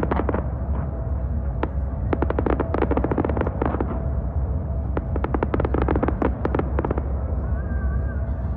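Aerial fireworks crackling in rapid runs of sharp pops: one at the start, a long run from about two to nearly four seconds in, and another from about five to seven seconds in, over a steady low rumble.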